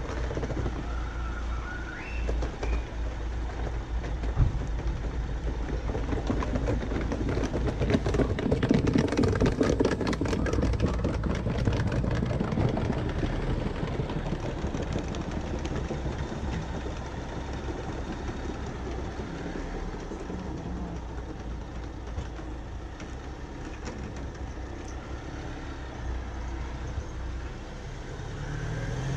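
Street traffic: cars passing and engines running, a steady rumble that swells a few seconds in and then eases off.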